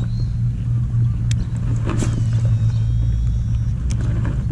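Steady low rumble, like distant road traffic or wind on the microphone, with a few light clicks and taps from a baitcasting reel being handled, about a second in, at two seconds and near the end.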